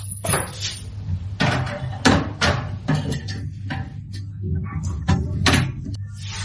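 A run of irregular knocks and clatters, about a dozen, over a steady low hum.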